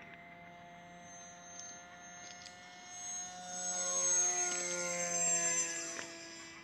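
Radio-controlled twin jet model plane's motors whining as it makes a low fly-past. The whine swells about three seconds in, is loudest around four to five seconds, and its pitch drops as the plane goes by.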